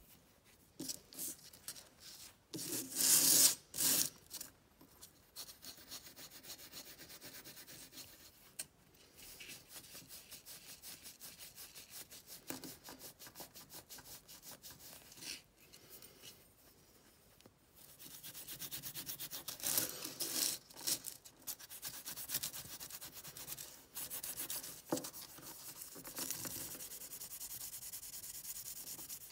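Old HAZET open-end wrench being hand-polished with polishing paste on a felt pad and cloth: quick back-and-forth rubbing strokes. A few louder scrapes come about three seconds in.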